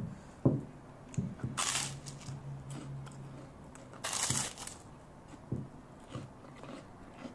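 A drinking glass scraping and knocking softly as it spreads soft cheese filling over rolled-out dough on a wooden board: a few light knocks and two brief rushing scrapes.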